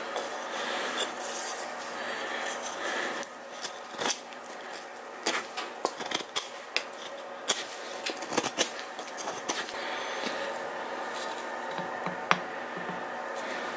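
Steel knife blade scraping and shaving a block of wood by hand: a run of irregular short scrapes and clicks over a steady faint hum.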